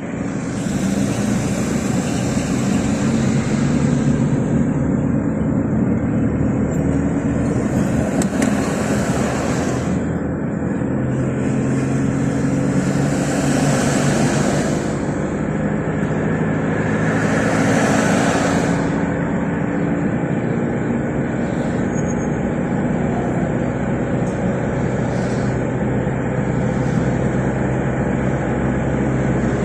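Road traffic: a steady engine hum with a few vehicles passing, each swelling up and fading, about a third, half and two-thirds of the way through.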